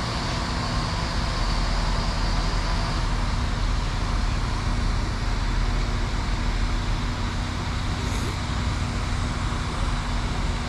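Diesel train's engine running with a steady low hum.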